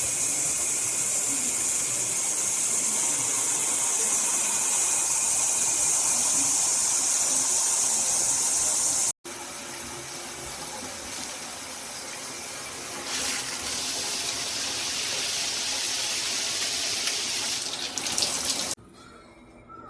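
Shower water spraying steadily from a shower head. About nine seconds in it cuts off abruptly, and a quieter spray follows, stopping just before the end.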